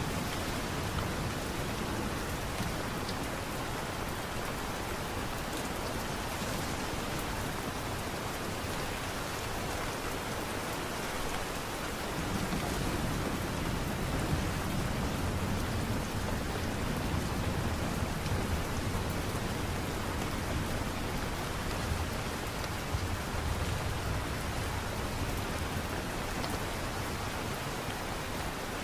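Steady light rain, an even hiss of falling drops, with a low rumble swelling in about halfway through and easing off near the end.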